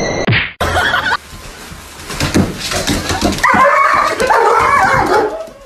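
A dog barking and whining, with knocks and clatter in the quieter middle stretch.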